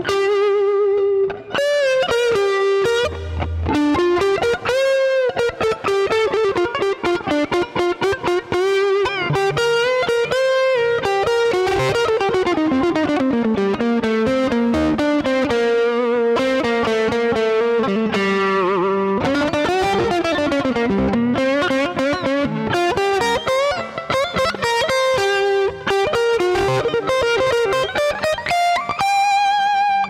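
Fender Stratocaster played on its neck (bass) pickup through a Marshall Jackhammer distortion pedal: a distorted single-note lead line with string bends, slides and vibrato.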